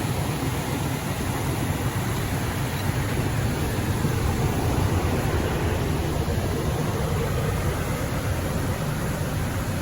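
Car driving along a highway: steady road and tyre noise over a low engine rumble.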